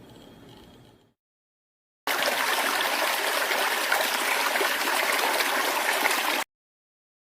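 Steady rush of flowing water, starting abruptly about two seconds in and cutting off sharply some four seconds later.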